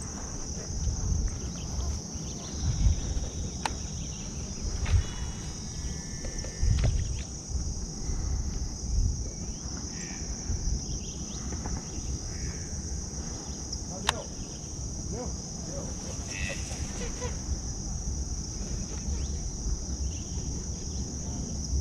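Steady high-pitched drone of insects, with low rumbling and a few soft thumps underneath.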